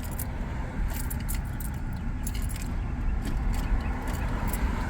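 Car keys jingling and clicking in the ignition of a stalled Honda Civic as the driver tries to restart it, irregular light clicks over a steady low rumble. The engine doesn't crank: the starter isn't engaging after the rod-knocking engine died.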